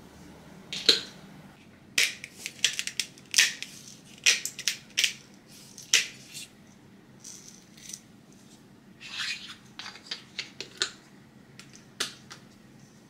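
Hand-twisted black pepper grinder crunching peppercorns, giving clusters of sharp clicks and crackles in several short bursts.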